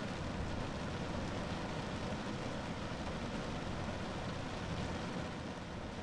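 Rain falling steadily on a car roof: an even, unbroken wash of sound, heaviest in the low end.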